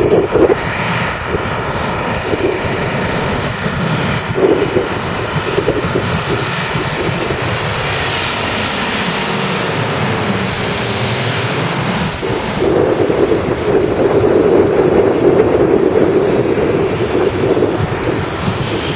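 Airbus A330-300 jet engines on final approach passing low overhead: a steady whine of several tones whose pitch falls as the airliner goes over about ten seconds in, then a louder low rushing noise as it moves away.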